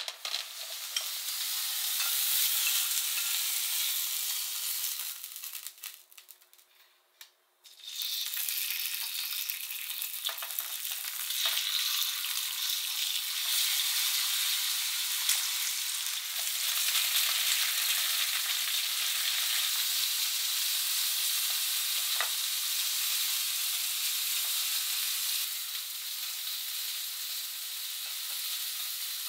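Mushrooms dropped into hot oil in a frying pan, sizzling at once. After a short drop to near quiet, pork slices fry in a stainless steel frying pan with a steady sizzle and a few light clicks.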